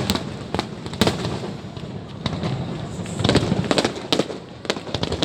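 Aerial fireworks going off: a string of sharp, irregular bangs and pops with crackling between them, coming thickest about three to four seconds in.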